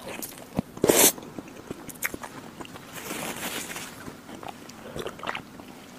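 Close-miked eating sounds of soft, molten chocolate lava cake taken from a spoon: wet chewing and small mouth clicks, with one loud wet mouth sound about a second in.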